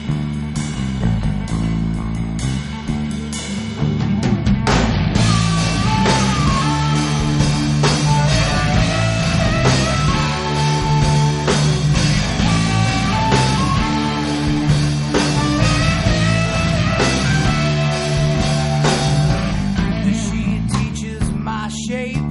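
Rock music with guitars and a drum kit; the band comes in fuller about four seconds in.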